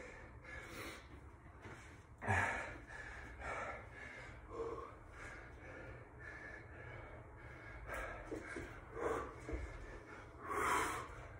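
A man breathing hard, out of breath from high-intensity exercise: a run of gasping breaths and blown-out exhales about once a second, with the loudest exhales about two seconds in and near the end.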